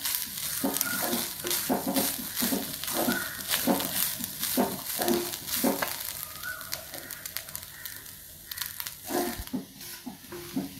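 Wooden spatula stirring and scraping grated coconut, shallot and whole spices against an iron kadai as they dry-roast in a little coconut oil, in repeated irregular strokes, with a light sizzle underneath. The coconut is being roasted reddish-brown for a roasted-coconut (varutharacha) curry paste.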